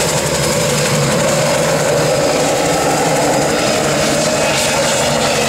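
Soloy turbine-converted Bell 47 helicopter flying past with a sling load, its turbine engine and rotor running steadily and loudly.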